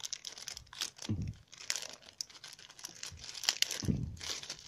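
Thin plastic bag crinkling and rustling as hands open it and draw out a coiled USB cable, with irregular crackles and a couple of dull thumps from handling.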